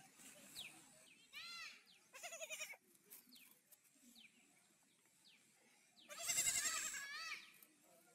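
Baby goat kids bleating: two short bleats in the first three seconds, then a loud, longer, wavering bleat about six seconds in.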